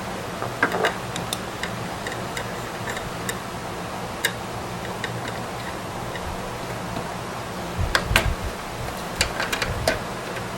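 Scattered light clicks and knocks of hardware being handled, with a louder cluster and a dull knock about eight seconds in, over a steady low hum.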